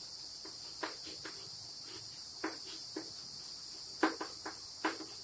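Chalk tapping and scraping on a blackboard in short, irregular clicks as a word is written, the loudest about four seconds in. A steady high chirring of crickets runs underneath.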